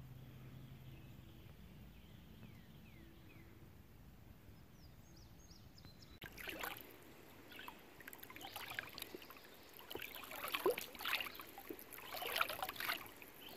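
Pool water in an above-ground pool sloshing and splashing irregularly, starting about six seconds in. Before that there is only a faint steady low hum and a few faint chirps.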